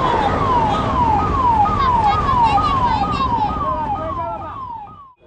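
A siren sounding in quick falling sweeps, about two a second, over the low rumble of a passenger train's coaches passing. Both fade away and cut off suddenly just before the end.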